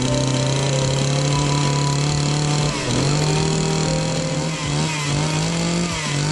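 Gasoline chainsaw running at high revs while ripping a log lengthwise into a slab. The engine speed dips briefly and recovers about three seconds in, and again near the end.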